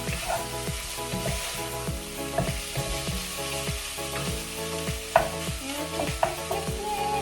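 Chicken pieces sizzling in a frying pan with garlic and paprika while being stirred, the utensil scraping and knocking through the pan, with two sharp clinks against the pan about five and six seconds in.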